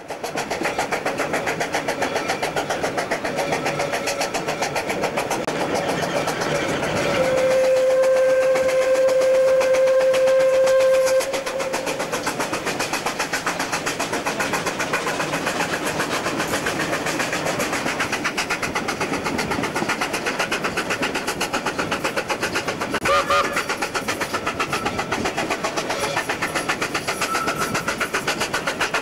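Two steam locomotives double-heading a train, heard from a carriage, with a fast, steady beat of exhaust. About seven seconds in, a steam whistle sounds one steady note for about four seconds, the loudest sound here, and a brief second toot comes later.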